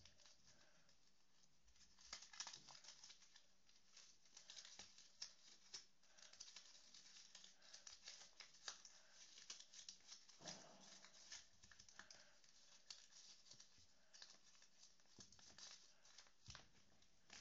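Faint rustling and crinkling of a paper sheet being folded and creased by hand, in many small, irregular ticks.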